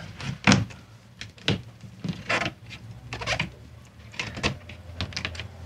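A catamaran's hinged cabin window hatch being swung shut and latched: a series of short clicks and knocks, about one a second.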